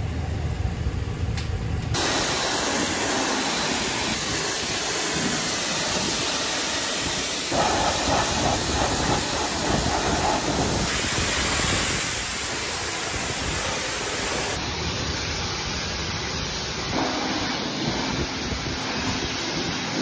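High-pressure car-wash spray wand blasting water onto a muddy pickup truck's tyre, wheel well and body panels: a steady, loud hiss of spray and spatter that changes sharply at several cuts. A low hum fills the first two seconds before the spray starts.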